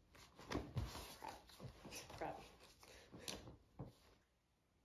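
Close rustling, knocks and clicks, as of things handled right by the microphone, with a few short muffled vocal sounds mixed in; it stops about four seconds in.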